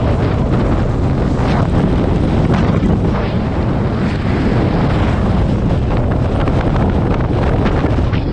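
Strong wind buffeting the microphone: a loud, unbroken rush of noise, heaviest in the low end.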